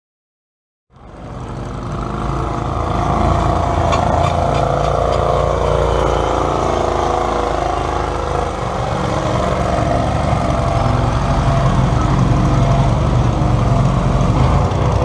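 Silence for about a second, then a garden tractor's engine fades in and runs steadily under heavy load as it pulls a weight sled.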